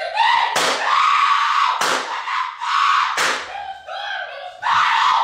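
Loud, harsh screaming, four screams in quick succession, each starting abruptly and lasting about a second.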